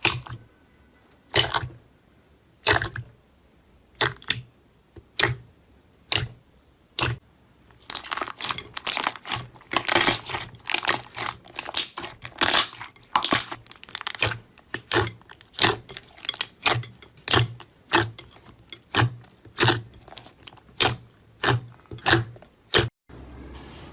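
Slime being pressed and squeezed by hand, making a series of sharp crackling pops. They start slow and spaced out, bunch into a dense flurry partway through, then settle into a steady pop about every two-thirds of a second.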